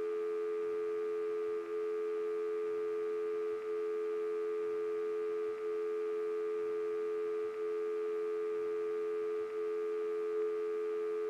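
Steady two-note telephone line tone, like the dial tone left on a line after a call hangs up, with a very short dip about every two seconds.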